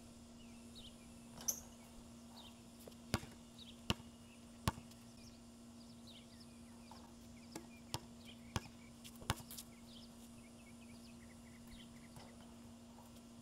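Basketball bouncing on an outdoor court: about eight separate thuds of the ball, three of them in a quick row about 0.8 s apart, with a steady low hum and faint high chirps underneath.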